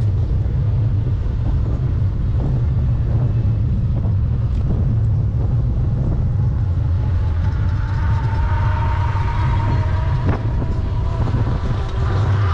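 Wind buffeting the microphone of a camera on a moving bicycle: a steady low rumble. From about eight seconds in, a faint steady hum of several tones joins it.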